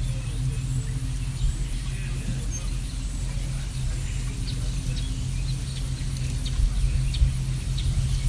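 Birds chirping in short high notes, more of them in the second half, over a steady low rumble that is the loudest sound.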